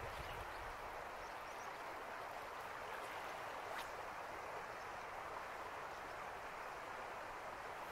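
Shallow river water flowing steadily, an even rushing hiss with a few faint high chirps near the start.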